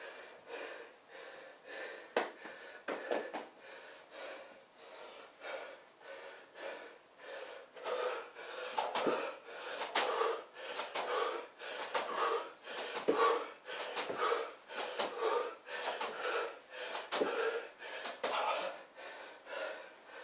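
A man panting hard in quick rhythmic breaths, about two a second, during jumping split lunges, with his feet thudding down at the landings. The breathing gets louder about eight seconds in.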